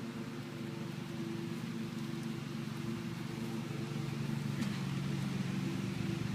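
An engine running with a steady hum that slowly grows louder.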